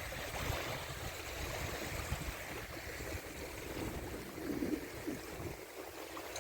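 Water rushing and splashing around a windsurf board on the sea, with a low wind rumble on the microphone that drops away about five and a half seconds in.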